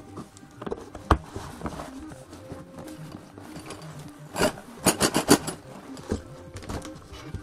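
Laser-cut MDF panels of a 3D printer kit being handled in a cardboard box: a sharp wooden knock about a second in, then a quick run of clacks and rustling around the middle, with another knock soon after. Background music plays underneath.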